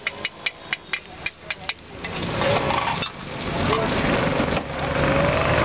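Metal spatula tapping rapidly on an iron frying pan, about four sharp clicks a second, stopping about two seconds in. Louder street noise with voices then takes over.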